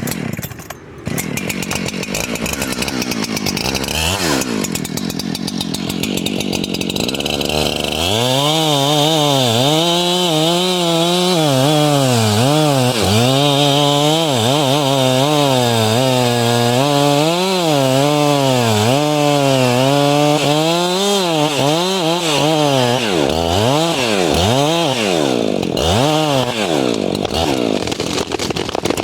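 Chainsaw engine running lower at first, with a brief rev about four seconds in. From about eight seconds in it runs at high revs while cutting, its pitch dipping and recovering about once a second as the chain bites into the wood.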